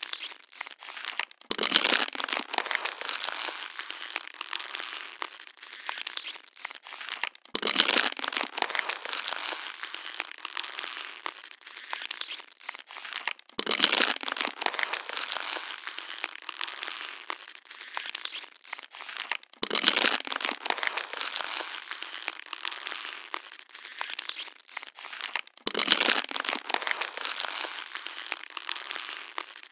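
A plastic water bottle being crushed and crinkled over and over: a loud crunch about every six seconds, five times, each trailing off into lighter crackling.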